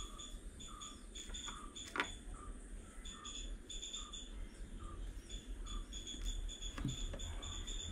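Insect chirping repeats in the background over a low hum. A sharp click comes about two seconds in and a softer one near the end as small plastic pen parts are handled.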